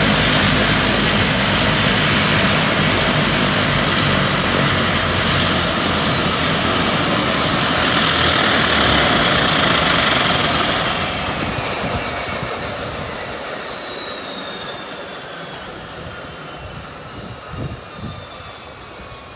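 Bombardier Dash 8-300 turboprop's engines running at ground idle with propellers turning, then shut down about eleven seconds in. The noise fades and the turbine whine falls steadily in pitch as the engines spool down and the propellers wind to a stop.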